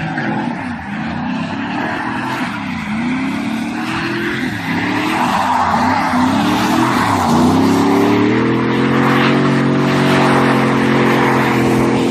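Car engine revving up and down several times, then accelerating with a steadily rising pitch from about seven seconds in, over a steady rushing noise.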